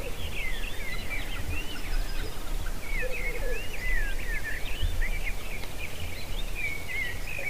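Birds calling in a chorus of many short rising and falling chirps, over a steady low rumble.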